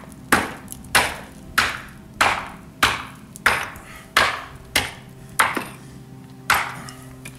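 A steel chisel struck repeatedly with a mason's hatchet to break the formwork boards away from the edge of a concrete slab. About ten sharp blows come at roughly one and a half a second, each ringing briefly, with a longer gap before the last one near the end.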